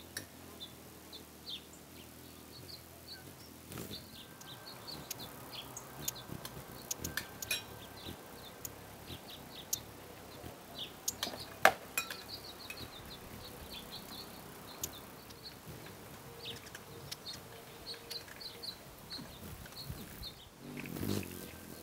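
Small birds giving short, high chirps over and over, with scattered light clicks and one sharp click about halfway through.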